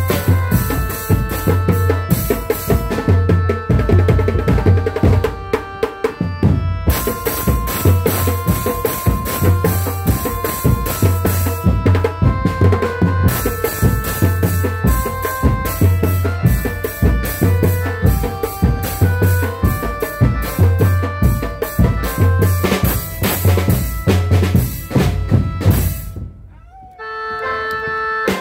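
Loud drum-led music with a steady beat, a repeating bass pattern and a melody of held notes. About twenty-six seconds in it drops away briefly, then comes back on a held note.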